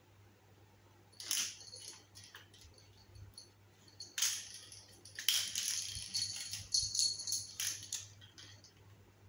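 Small bell on a kitten's collar jingling in short bursts as she pounces and plays: once about a second in, again about four seconds in, then a busy run of jingles through the next few seconds.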